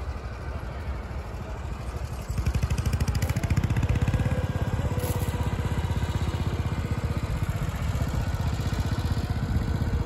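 Tractor engine running steadily with an even, fast pulse, growing louder about two seconds in.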